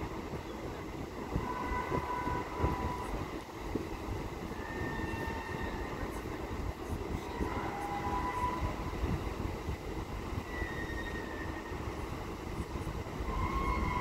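Steady low rumble of a large ferry's engines and propellers churning the water as the ship moves off its berth, with wind noise on the microphone. A few short high tones sound now and then over the rumble.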